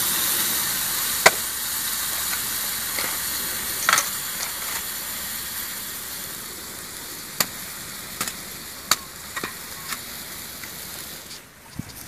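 Chicken frying in a wok, a steady high sizzle that slowly fades, broken by a few sharp knocks as a green coconut is split open and handled.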